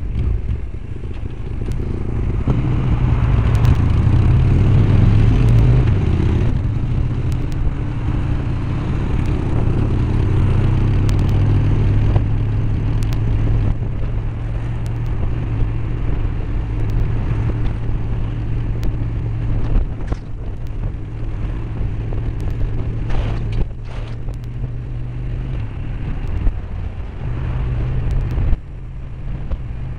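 A 2000 Honda Shadow Aero 1100's V-twin engine droning under way, heard from the rider's helmet with wind rushing over the microphone. The engine sound swells a couple of seconds in and drops off suddenly near the end.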